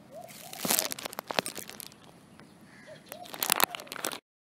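Crackling, crinkling noise in two clusters of sharp clicks, the first about a second in and the second near the end, then an abrupt cut to silence.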